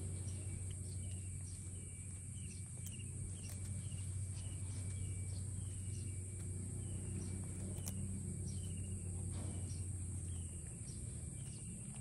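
Outdoor garden ambience: a steady high insect buzz and a bird repeating short falling chirps about twice a second, over a low steady hum that stops near the end.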